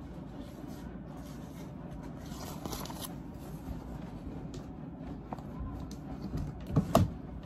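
Rustling and crinkling of wound-dressing supplies, a gauze pad and its wrapper, being handled, with scattered small clicks and a couple of louder knocks near the end.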